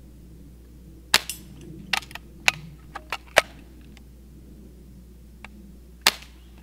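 Daisy Grizzly BB gun being test-fired: a sharp snap about a second in and another near the end, with a run of smaller sharp clicks between them.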